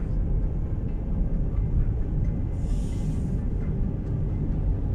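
Steady low road rumble inside a moving car's cabin: tyres and engine at cruising speed, with a brief hiss about three seconds in.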